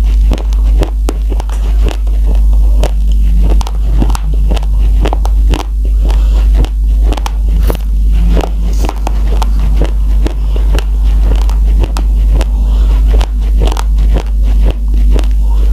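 Raw rice grains crunched between the teeth, heard close up as a fast, irregular run of sharp crunches, over a steady deep hum.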